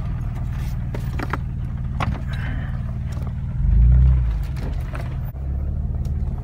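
Jeep Wrangler driving slowly over a rough dirt road, heard from inside the cabin. There is a steady low engine and drivetrain rumble, with scattered rattles and knocks from the body, and the rumble swells louder about four seconds in.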